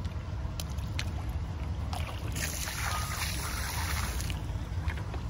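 Water poured out of a plastic bucket, splashing down onto the sea surface in a steady rush for about two seconds, starting about two seconds in.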